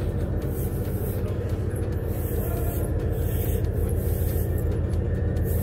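Steady low mechanical drone of a passenger train standing at a station platform, a deep unbroken hum that does not change.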